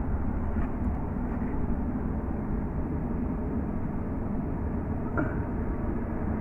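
Steady low rumbling noise with no clear single source, the sort that wind buffeting a microphone or distant traffic makes outdoors.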